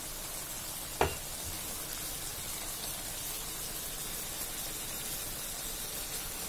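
Stir-fried yard-long beans simmering in a wok with a little water, giving a steady sizzling hiss; the beans are half-cooked. One short knock about a second in.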